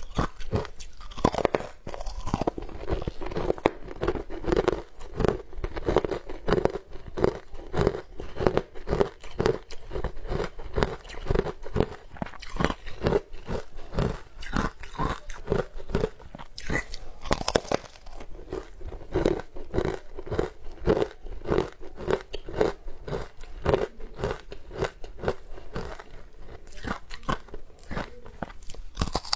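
Close-up crunching and chewing of a crumbly green powder-coated sweet block, the crunches coming steadily about two to three times a second.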